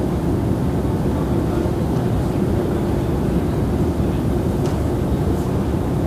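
Prague metro train running through a tunnel, heard from inside the car as a steady, even low rumble.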